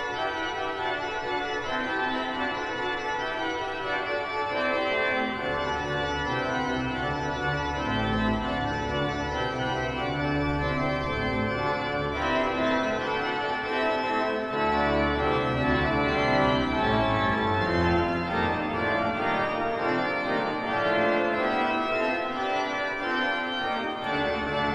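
Organ music: sustained, changing chords, with a bass line coming in about five seconds in.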